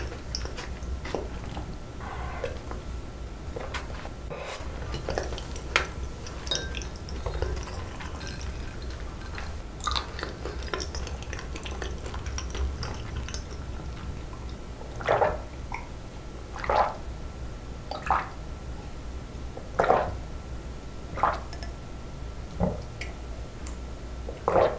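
Close-up mouth sounds of a person eating and then drinking: soft chewing and wet mouth clicks, then, in the second half, a steady run of about seven swallowing gulps of water, roughly one every second and a half.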